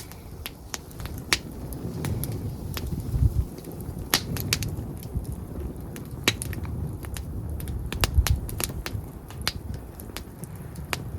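Open wood campfire crackling: irregular sharp pops and snaps, a dozen or more, some loud and some faint, over a low uneven rumble.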